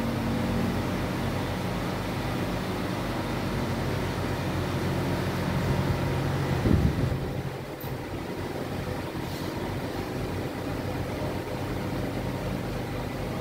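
Steady low mechanical hum holding a few fixed low pitches over a background hiss, with a short low thump about seven seconds in.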